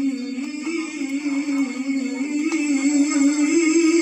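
A male qari's voice in melodic Quran recitation, amplified through a microphone, holding one long ornamented note that wavers in pitch and rises slightly near the end.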